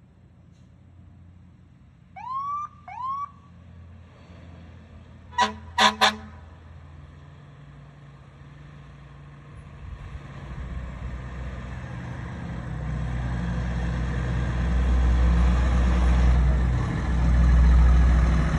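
Fire engine approaching: two short siren whoops, then three quick horn blasts, then its engine rumble growing steadily louder as it comes close.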